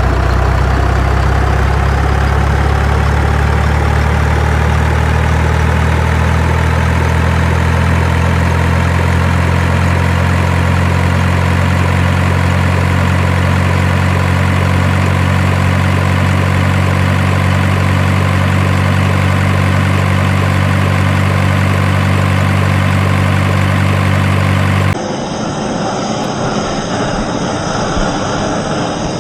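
Truck engine idling steadily, a deep even drone. About 25 seconds in it cuts abruptly to a quieter, different engine sound.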